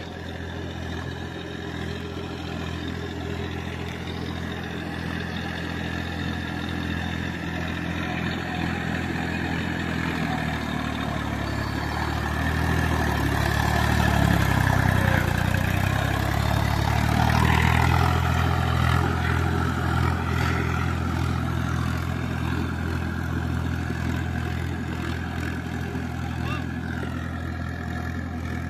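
Massey Ferguson 245 DI tractor's three-cylinder diesel engine running steadily under load while its cage wheels puddle a flooded paddy field. It grows louder as it passes close about halfway through, with mud and water churning under the wheels, then fades as it moves away.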